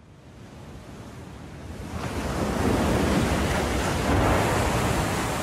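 Sea waves washing on a shore, fading up from silence and swelling louder about two and a half seconds in.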